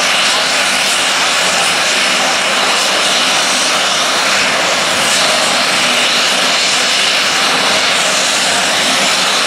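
Aircraft turbine engines running steadily at idle: a loud, even rush with a thin high whine over it.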